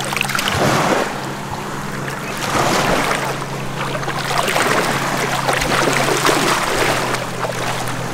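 Shallow water splashing as a snook held by the tail at the surface kicks and thrashes free on release, with a steady low hum underneath.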